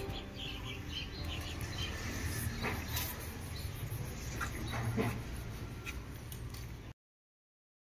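Short animal calls and chirps over a steady low hum, cutting off suddenly about seven seconds in.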